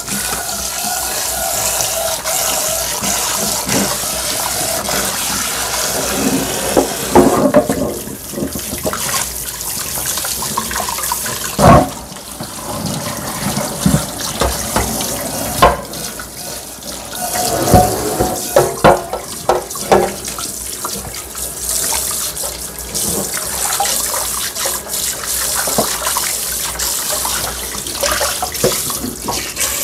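Kitchen tap running steadily onto a nonstick frying pan in a stainless steel sink as the pan is rinsed and scrubbed by hand. A few sharp knocks come as the pan is handled and turned over in the sink, the loudest about twelve seconds in and a cluster a little later.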